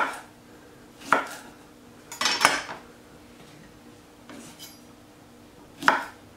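Chef's knife cutting small zucchini on a wooden cutting board: a handful of separate knocks of the blade on the board, spaced a second or more apart, with a longer clattering knock about two seconds in.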